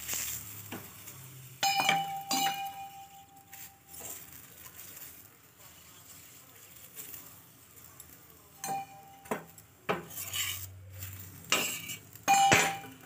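A steel spoon spreading oil over a paratha on a hot tawa, giving sharp ringing metallic clinks in three pairs, with a faint sizzle of oil in between.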